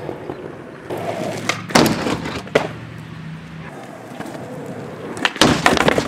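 Skateboard wheels rolling on street pavement, with sharp clacks of the board about two seconds in. Near the end, a quick cluster of clacks as the board shoots away from the rider on a missed trick.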